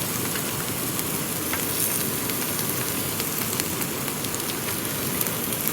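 Pork belly sizzling in a hot pan, with faint scattered pops, over a steady hiss of rain.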